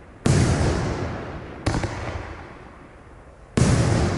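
A 50 mm fireworks cake (a 16-shot battery) firing: three loud bangs about one and a half to two seconds apart, each trailing off slowly, the middle one weaker.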